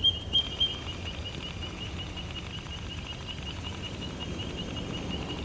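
White-throated treecreeper calling: a rapid, even series of high piping peeps, about six a second, the first three notes louder than the rest.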